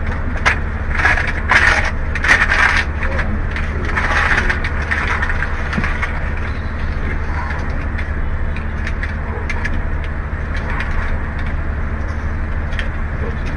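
Steady low hum of a car cabin, with rustling and clicking handling noises in the first few seconds and again about four seconds in.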